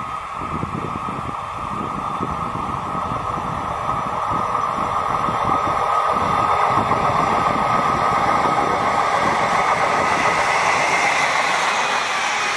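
Electric freight train, a DB class 151 locomotive hauling truck trailers on pocket wagons, approaching and growing louder, then the trailer wagons rushing past close by near the end.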